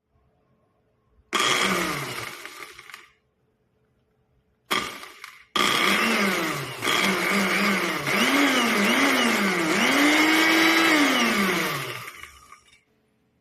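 A 250 W electric blender motor runs in pulses. There is a short run about a second in that spins down, then a brief pulse. After that comes a long run whose pitch sags and recovers several times as the contents load the blade, before it spins down near the end.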